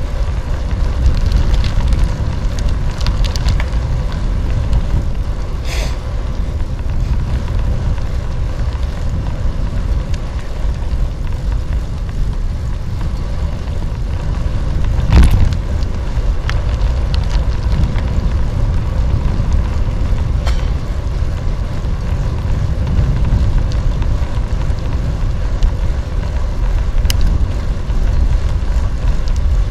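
Wind buffeting the microphone of a camera mounted on a bicycle with no suspension, over steady road-vibration noise while riding. There are a few light clicks, and one sharp knock about halfway through as the bike jolts over a bump.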